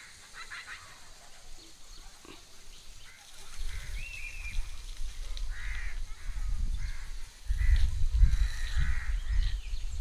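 Birds calling with short chirps and calls, over a low wind rumble on the microphone that sets in a few seconds in and grows louder near the end.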